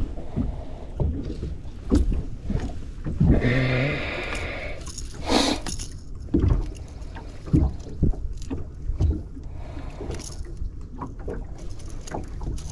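Knocks and thumps on a fishing boat's hull and deck, with wind and water in the background.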